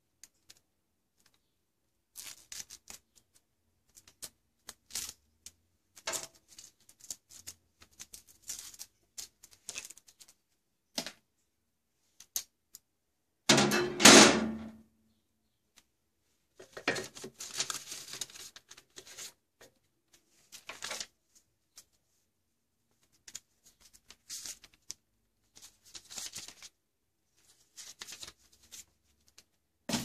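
Handling noise around a microwave oven: irregular clicks and clatter of a metal wire grill rack against the oven, with longer scraping stretches. The loudest clatter comes about halfway through.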